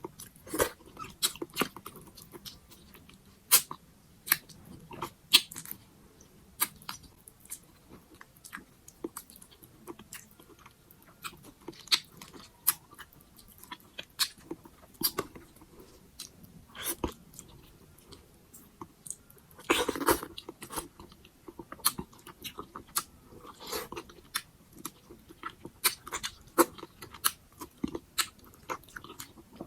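Close-miked eating sounds of a person chewing pork sinigang: irregular wet mouth clicks and smacks, with a louder, longer burst about twenty seconds in.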